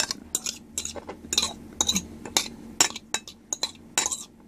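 A metal utensil clinking and scraping against a ceramic plate in quick, irregular taps, stirring freeze-dried food in water.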